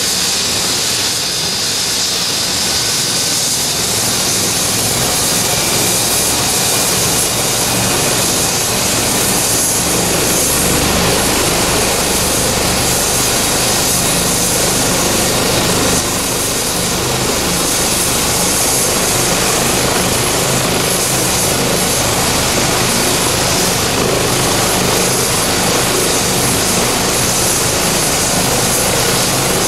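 Eurocopter EC135 twin-turbine helicopter running on the ground with its rotor turning ahead of lift-off. A steady high turbine whine sits over dense rotor and engine noise, which grows slightly heavier in the low end partway through.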